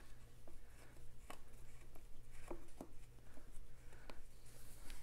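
Painted metal hose protector being worked by hand down over a cloth-covered oil pipe: soft rubbing and scratching with a few scattered small clicks, over a steady low hum.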